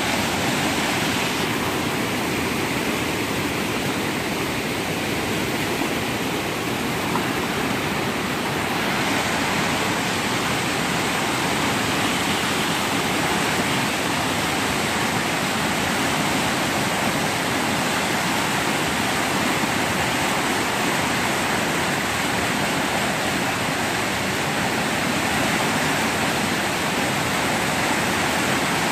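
The Rappahannock River in flood, churning brown whitewater rushing through rapids over rocks in a steady, loud rush.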